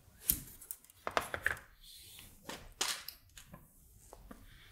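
Scattered light clicks and taps of a printed circuit board being handled, turned over and set down on a cutting mat, with a small part picked up; the sharpest tap comes just after the start.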